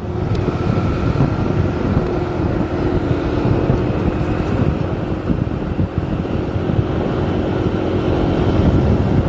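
Vehicle in motion: a steady engine and road rumble, with wind buffeting the microphone.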